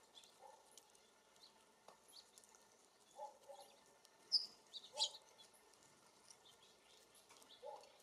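Small songbirds chirping, faint: short, scattered high chirps, the loudest a pair of sharp ones about four to five seconds in, with a few lower, two-pitched calls now and then.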